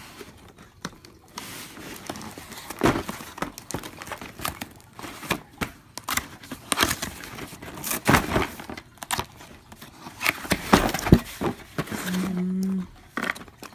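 Cardboard box flaps and plastic-bagged cameras and cables being handled during unboxing: irregular rustling, crinkling and light knocks of cardboard. A short low steady hum sounds near the end.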